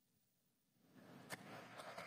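Pokémon trading cards being handled and slid against each other in the hands: a soft rustle starting about a second in, with a couple of light clicks.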